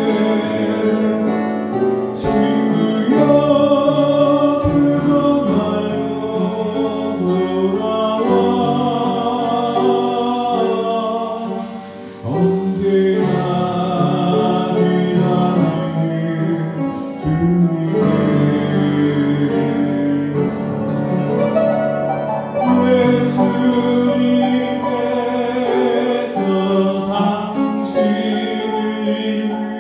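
A man singing a slow praise song with vibrato while accompanying himself on an upright piano, with short breaks between sung phrases.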